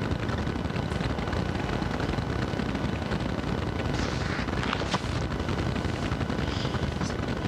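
Steady low rumble of background noise, with a brief rustle of paper about four to five seconds in as the pages of a large altar missal are turned.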